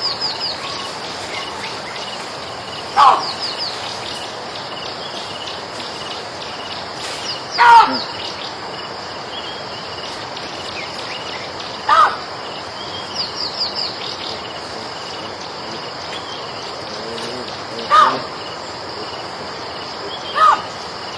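A monkey giving five short, loud calls, a few seconds apart, over a steady high chorus of crickets or other insects.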